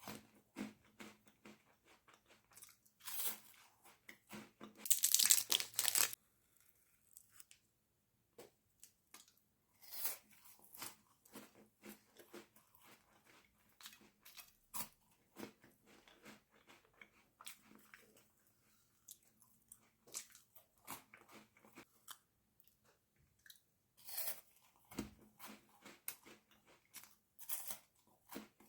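Close-up eating of a chocolate bar with crunchy Lotus Biscoff: loud crunchy bites about three seconds in, again around five to six seconds, and several more near the end, with quieter crackly chewing in between.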